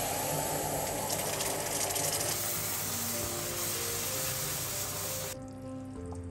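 Hot caramel hissing and bubbling violently as cold cream hits it and it is stirred with a wooden spoon; the loud hiss cuts off about five seconds in, leaving a quieter simmer. Background music underneath.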